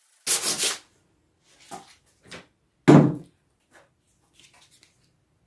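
Hand sanding of freshly routed timber with soft sandpaper: a brief rub over the wood about a third of a second in, then a few light knocks and one louder thump about three seconds in.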